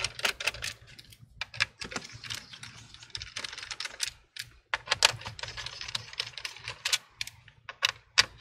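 Irregular runs of quick clicks and ticks from a Phillips PH1 screwdriver turning out the laptop's bottom-cover screws, with the small screws being handled, broken by short pauses about four and seven seconds in.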